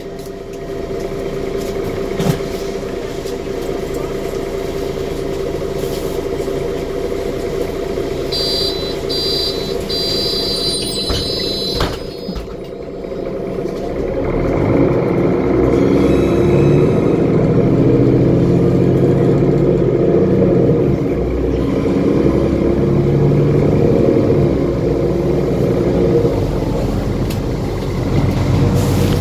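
Mercedes Conecto G articulated bus's OM457LA six-cylinder diesel heard from inside the cabin, first running steadily at a stop, with a series of short high beeps about eight seconds in. From about fourteen seconds the engine grows louder as it pulls the bus away under load through its Voith automatic gearbox.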